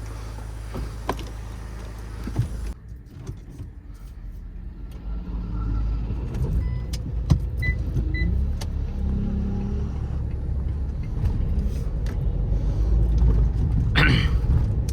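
Mahindra XUV500's mHawk four-cylinder turbo-diesel running on the road. It settles into a steady low hum for the first few seconds, then grows louder and heavier from about four seconds in as the car accelerates.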